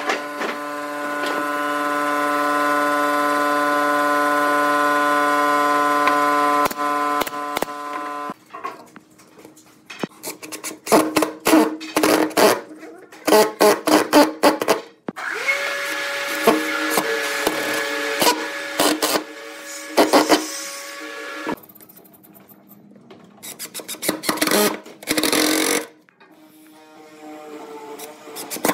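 Cordless impact driver driving screws into pine: a steady motor whine for the first eight seconds or so, then spells of rapid hammering clicks between further stretches of whine.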